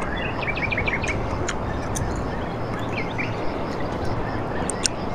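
Birds calling: a quick run of short chirps about half a second in, then scattered rising and falling whistled notes, over a steady background hiss. A few sharp clicks stand out.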